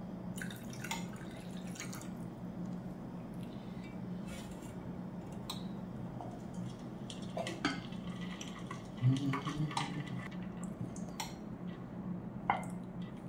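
Water being poured from a cup into a stainless-steel cooking pot, then scattered clinks and knocks of the steel pot and its lid, the loudest a knock about nine seconds in, over a steady low hum.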